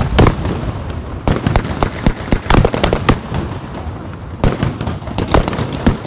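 Blank gunfire from rifles and automatic weapons: clusters of rapid sharp shots, densest through the middle, with a brief lull around the fourth second before another burst near the end.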